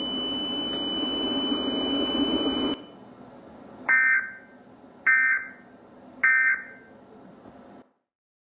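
Emergency Alert System end-of-message data bursts: three short, harsh digital warbles about a second apart, marking the end of the tornado warning broadcast. They follow a steady hiss with a thin high hum that cuts off at about three seconds.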